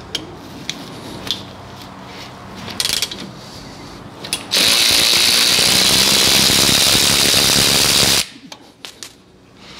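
Cordless power ratchet with a 15 mm socket running for about three and a half seconds, then stopping suddenly, as it backs out a brake caliper guide-pin bolt while the pin is held against spinning. Before it come scattered light metal clicks of tools being handled.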